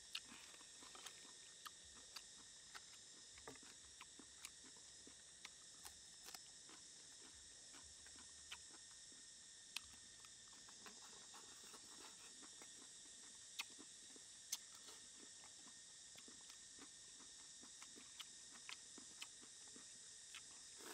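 Faint close-up eating sounds: crisp green vegetable stems being bitten and chewed, heard as scattered short crunchy clicks over a steady high-pitched background hiss.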